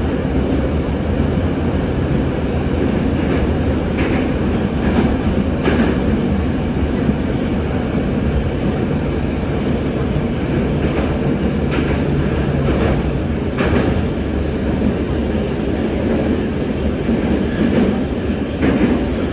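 81-717/714 metro train running at speed through a tunnel, heard from inside the car: a steady rumble with occasional wheel clacks over the rail joints.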